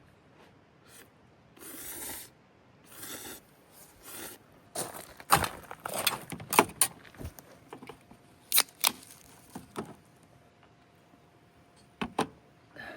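Things being handled: a few short rustling swishes, then a run of sharp clinks and knocks, and two sharp clicks near the end.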